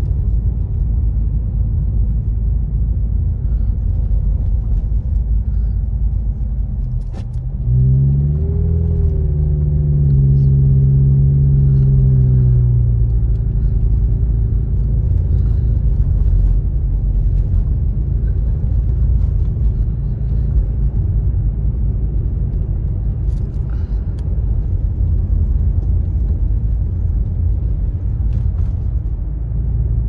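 A car's engine and road rumble heard from inside the moving car. About seven seconds in there is a brief click, then the engine note rises as the car speeds up, holds for a few seconds and settles back into the steady drive.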